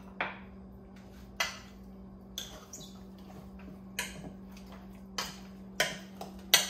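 A spoon clinking and scraping against a mixing bowl as seasoned raw chicken pieces are stirred, about seven separate clinks a second or so apart, over a steady low hum.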